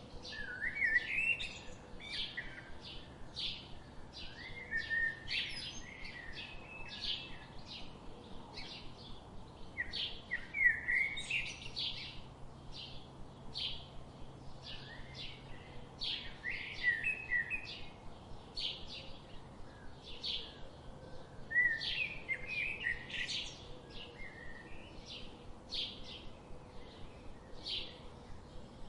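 Songbirds chirping: a steady stream of quick high chirps, with a warbling phrase breaking in every five or six seconds.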